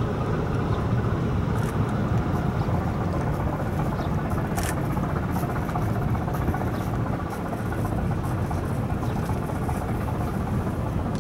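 Steady low rumble and hiss of outdoor background noise, with a faint click about four and a half seconds in.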